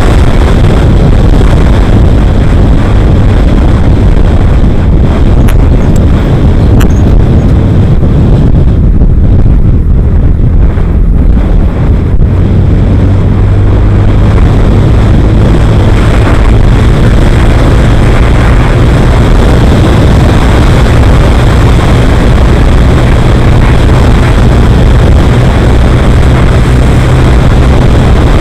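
Loud, steady rush of wind on the microphone over the low hum of a vehicle's engine cruising along a road; the engine hum grows stronger and steadier about twelve seconds in.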